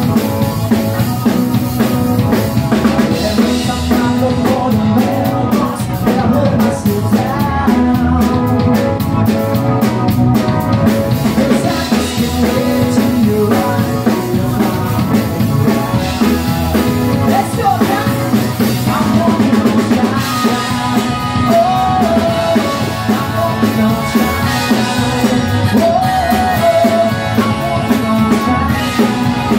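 Loud music with a steady drum-kit beat and a singing voice.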